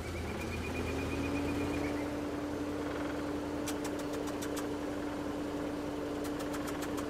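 Side-by-side utility vehicle (hunting buggy) engine running. Its whine rises over the first second, then holds steady, with a few light clicks about halfway through and again near the end.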